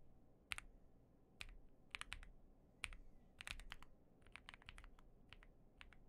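Slow, halting typing on the Angry Miao AM AFA, an Alice-layout mechanical keyboard with a leaf-spring gasket mount: faint, separate key clacks at an uneven pace, about a dozen in all, with pauses between them.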